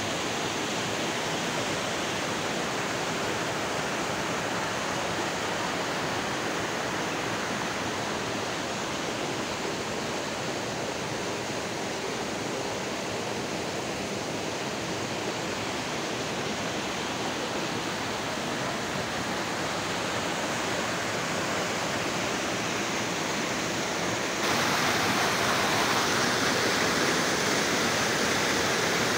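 Canyon stream rushing over rocks in a steady roar of water, with a cascade pouring into a rocky pool. The water gets suddenly louder and brighter near the end.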